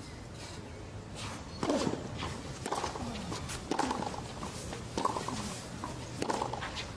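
Tennis ball struck back and forth with rackets on a clay court: a serve about a second and a half in, then a rally with a sharp pock about every second.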